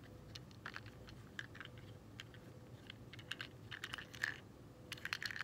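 Light, irregular clicks and taps of fingers handling a small plastic toy train tender as it is turned over.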